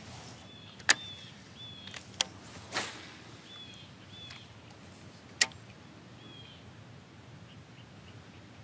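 Several short bird chirps, each a brief high note with a slight downward hook, over a faint steady outdoor background, with three sharp clicks scattered among them.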